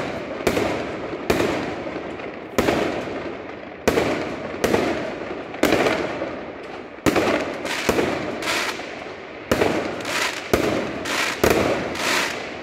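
Aerial fireworks bursting overhead in a rapid series of sharp bangs, about one a second and sometimes closer together, each followed by a short fading tail.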